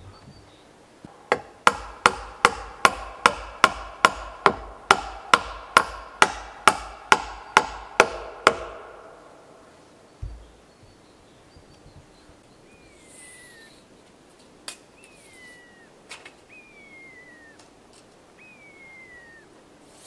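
Hammer striking wood in a steady run of about eighteen blows, a little over two a second, each with a short ring, stopping about eight and a half seconds in. Four short falling whistles follow later.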